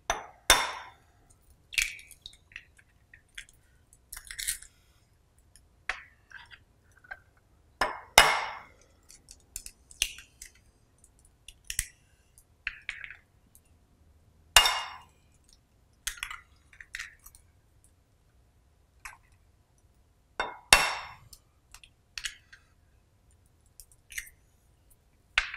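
Eggs cracked one at a time against a glass bowl: four sharp knocks several seconds apart, each followed by a short crackle of shell, with lighter clinks between.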